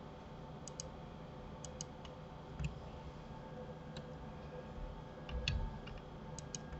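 Scattered clicks of a computer mouse and keyboard, several coming in quick pairs, over a faint steady hum.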